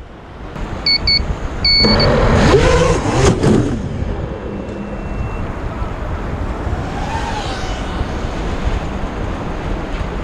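Wind buffeting the microphone of the crashed quad's onboard camera, mixed with sea surf washing on the shore. It is loudest for a couple of seconds early on. Three short electronic beeps come about a second in.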